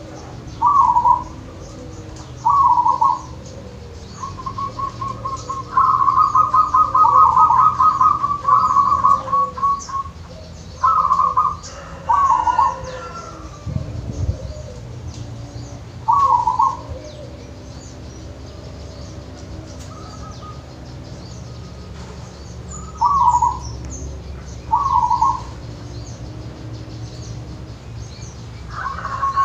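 Caged local zebra dove (perkutut) singing its cooing song: short phrases of a few quick notes every few seconds, with a longer rapid rolling series about six to ten seconds in and another starting at the very end. A low steady hum runs underneath, and there is a dull thump near the middle.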